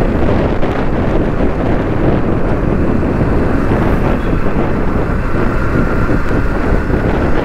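Wind rushing and buffeting over the microphone of a moving motorcycle, with steady riding noise underneath. A faint steady whine comes in during the second half.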